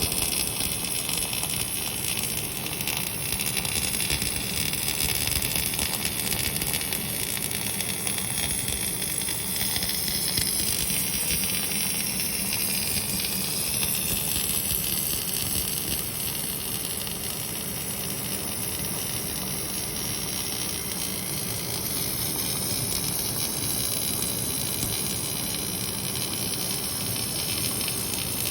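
Robotic arc welder running continuously: a steady hissing, crackling arc with no breaks.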